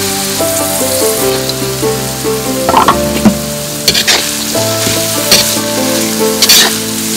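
Shredded vegetables sizzling as they fry in a wok and are stirred, with the spoon scraping against the pan several times in the second half.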